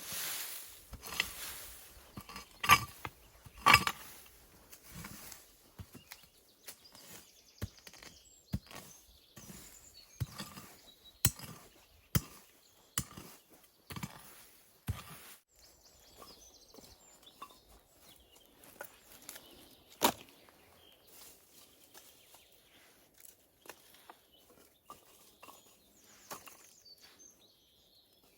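Irregular knocks, snaps and rustling from hands working with sticks and brush, loudest and busiest in the first few seconds, with a single sharp crack about twenty seconds in.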